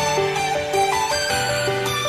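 Instrumental background music: a melody of short notes moving over held low notes.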